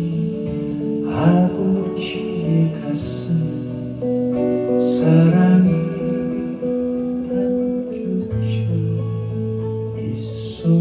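Steel-string acoustic guitar strummed and picked in a folk song, with chords ringing on between strokes that come every second or two.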